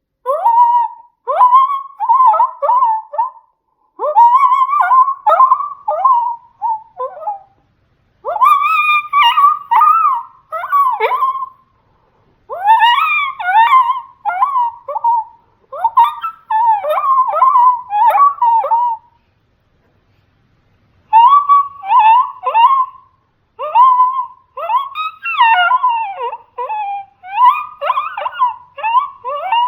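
Yote Punchin coyote howler blown in quick, short whimpering whines, many in a row in runs of a few seconds broken by brief pauses. It imitates female coyote whimpers, a breeding-season call.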